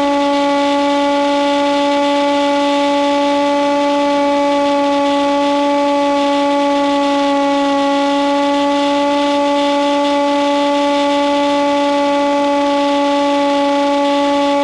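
Electric motor of a Hawk Sky foam model plane whining at a steady cruise throttle, heard through the onboard FPV audio link. It is one unchanging pitched hum with a hiss over it.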